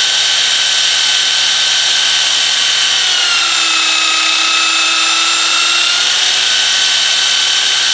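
Craftsman belt sander running steadily while a steel knife blank cut from a saw blade is ground on its belt. The motor's whine sags slightly in pitch for a few seconds in the middle as the blade is pressed on, then comes back up.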